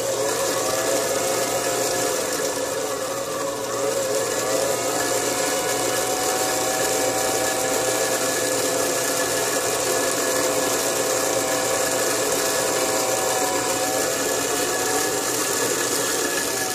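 Motor-driven cutter spindle on a watchmaker's lathe set up for cutting a pinion, running steadily through its belts. A few tones in the sound drift slightly in pitch now and then.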